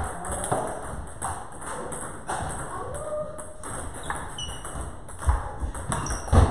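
Table tennis balls clicking off paddles and tables in quick irregular strikes, with two louder thumps near the end.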